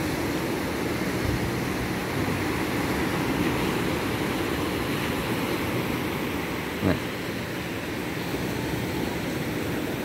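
Small waves breaking and washing up a sandy beach: a steady rushing surf, with one brief short sound about seven seconds in.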